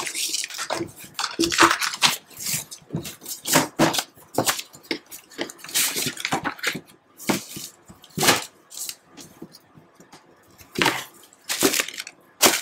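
Stiff paper being handled, rustling and crinkling in irregular sharp crackles.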